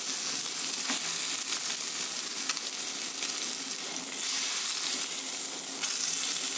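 Chicken leg pieces sizzling as they shallow-fry in hot oil in a nonstick kadai, with light ticks and scrapes of a fork as the pieces are turned over. The sizzle grows louder about four seconds in, as a piece is flipped onto its uncooked side.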